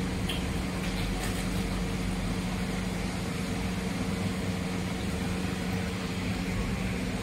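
Steady machine hum, a constant low drone over a noisy background.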